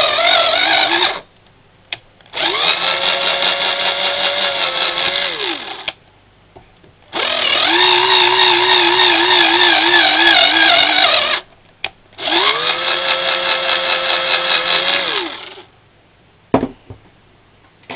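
Electric drill driving a tap into the exhaust bolt holes of an HPI Baja engine's cylinder head, recutting the cross-threaded holes to take 6 mm bolts. The motor runs in four bursts of a few seconds each with short pauses between, its whine rising as it spins up and wavering as the tap loads, then a couple of clicks near the end.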